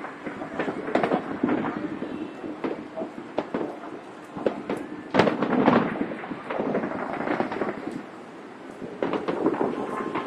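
Aerial fireworks going off: a string of sharp bangs and crackles, the loudest a little past halfway, with a short lull before more bangs near the end.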